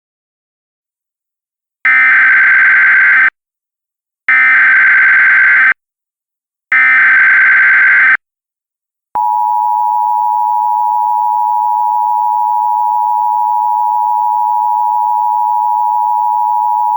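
Emergency Alert System alert tones: three short, identical bursts of SAME header data with about a second between them, then the steady two-tone EAS attention signal held for about eight seconds before it cuts off sharply.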